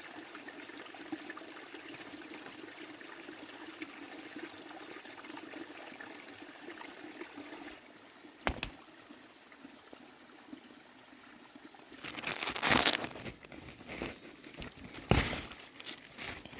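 Water running and trickling steadily for about eight seconds. It stops abruptly, followed by a sharp click, a loud burst of rustling and then a couple of sharp knocks near the end.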